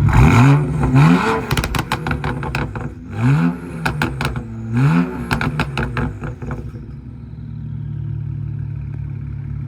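BMW N54 twin-turbo inline-six exhaust free-revving in four quick blips, each rising in pitch and falling back with a burst of crackling pops on the overrun, from a tune that keeps some burble. It then settles to a steady idle for the last few seconds.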